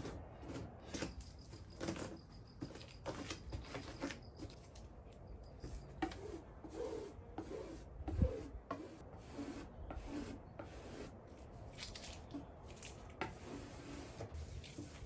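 Gloved hands and a resin spreader rubbing and scraping over resin-wet fibreglass cloth on a boat hull, in irregular short strokes. There is a dull knock about eight seconds in.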